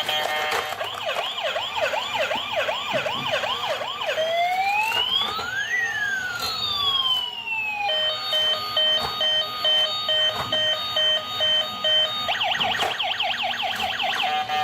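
Electronic emergency-vehicle siren cycling through its tones: a fast warbling yelp, then two slow wails crossing as one rises and the other falls, then a steady pulsing beep pattern about halfway through, and back to the fast yelp near the end.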